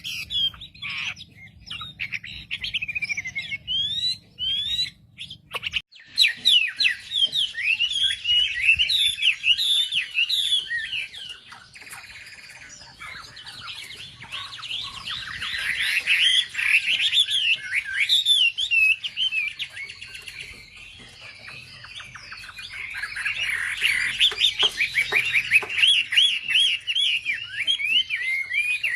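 Wambi, a small sunbird kept as a songbird, singing a fast, high twittering song of rapid chirps and trills, louder in some stretches and quieter in others.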